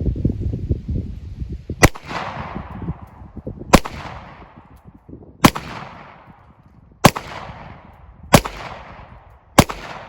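Six shots from a Glock 30 .45 ACP pistol, fired singly about one and a half seconds apart, each followed by an echo that fades over about a second.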